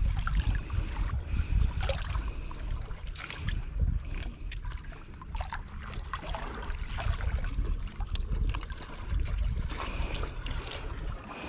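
Wind buffeting the microphone in uneven gusts, with water lapping and small splashes and knocks throughout.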